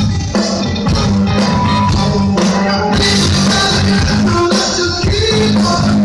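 Rock band playing at full volume, with drums, bass and guitar.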